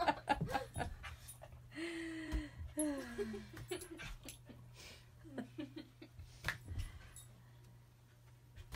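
A corgi whining, with a few drawn-out notes that fall in pitch a couple of seconds in, among shorter scattered vocal sounds, growing quieter toward the end.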